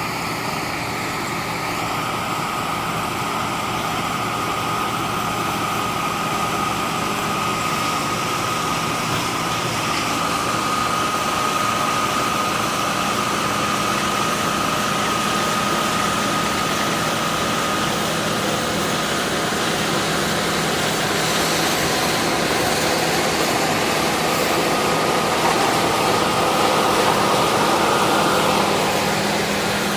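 Heavy farm machinery engine running steadily, with a constant high whine that drops in pitch near the end.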